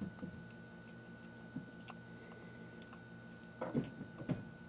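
Small clicks and taps of a 35mm film cartridge and spool being handled in a plastic-and-metal RB67 film insert, with a brief burst of louder handling near the end.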